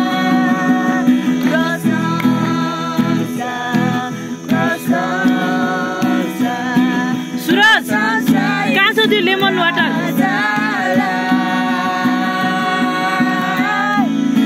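A woman singing while strumming an acoustic guitar, holding long notes.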